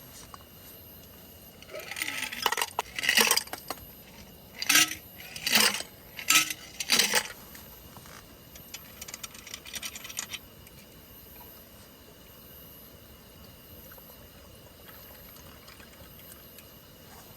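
Liquid poured from a bottle into a glass, glugging in a run of loud bursts over about five seconds, then a fainter patch before it stops.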